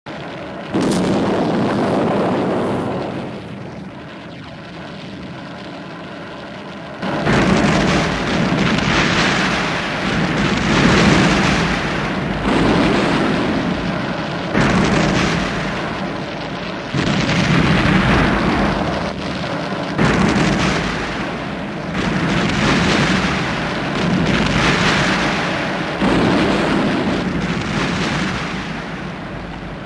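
Vintage Cinesound library explosion effects: one blast about a second in that dies away, then from about seven seconds a run of booms every second or two, each fading before the next.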